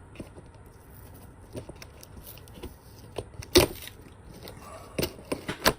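Action-figure box packaging being pried at and torn open by hand: scattered crinkles and clicks, with a sharp loud one about three and a half seconds in and several more near the end.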